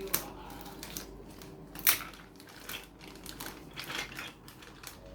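Irregular clicks and crinkles of Lego packaging being handled and opened, with one sharper click about two seconds in.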